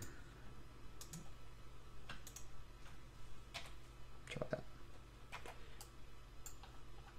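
Faint computer mouse and keyboard clicks: about ten short, irregular clicks as vertices are picked and shortcut keys pressed, with a heavier double click about halfway through.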